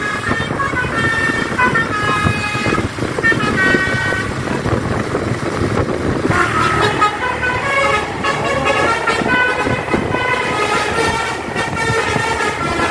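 Basuri telolet horn on a tour bus playing a tune: a run of stepped, pitched notes, with a new phrase starting about halfway, over steady road and engine noise.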